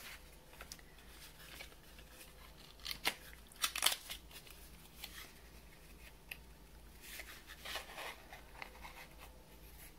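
Small cardboard box of watercolour paint tubes being opened by hand: a few scattered, light rustles and clicks of card and packaging, the loudest cluster about three to four seconds in and another near eight seconds.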